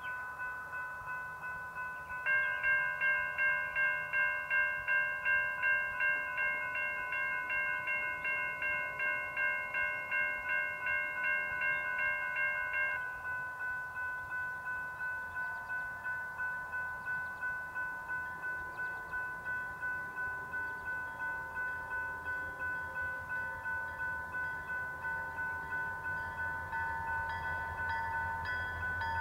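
Railroad grade-crossing warning bells ringing in a steady repeating rhythm. A second, louder bell joins about two seconds in and stops about eleven seconds later while the first keeps ringing. Near the end the low rumble of the approaching diesel locomotive grows beneath the bells.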